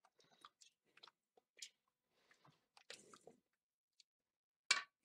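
Wooden spatula stirring thickened goulash in a pan: scattered soft squelching and scraping sounds, with one louder, sharper noise near the end.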